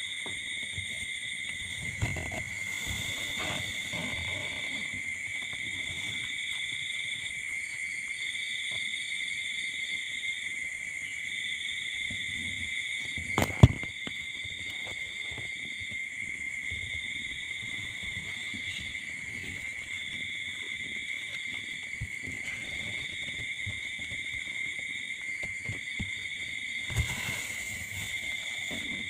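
Steady high-pitched insect trilling: one continuous high trill with a second, higher one pulsing on and off about every one and a half seconds. A single sharp click about halfway through, and soft rustling near the start and near the end.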